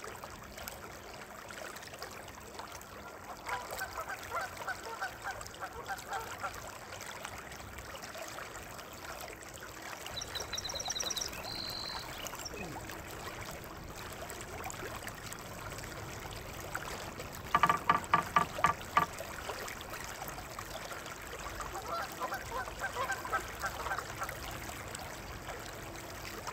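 Animal calls in quick pulsed series, heard several times, loudest about two-thirds of the way through, with a brief high chirping series about ten seconds in.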